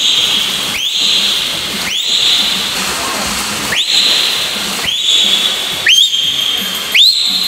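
Loud two-finger whistles, about one a second, seven in all. Each slides quickly up to a high held note. They are blown to urge a swimmer on, over the wash of splashing water.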